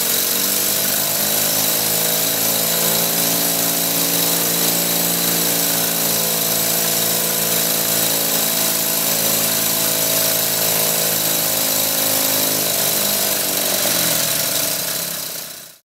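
Six-cylinder compressed-air motor running steadily: a loud hiss of air with a whirring mechanical hum, fading out near the end.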